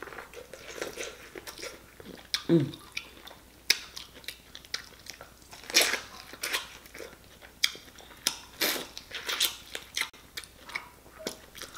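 Close-up eating sounds: teeth biting kernels off a sauce-coated corn on the cob and chewing, with irregular crunches and wet mouth smacks.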